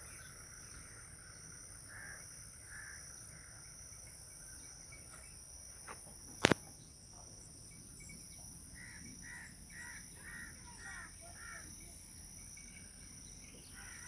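Rural outdoor ambience: a steady high-pitched insect drone, with a bird giving short harsh calls, twice early on and then about six in a row near the end. A single sharp click about six and a half seconds in is the loudest sound.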